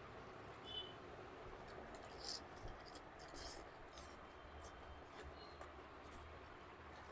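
Faint close-up eating sounds: soft wet clicks and smacks of chewing, with a couple of louder crisp crackles about two and three and a half seconds in.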